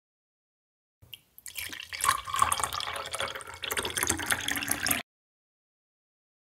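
Water pouring from a small tipped can into a miniature tin bucket, splashing and trickling for about four seconds before cutting off suddenly.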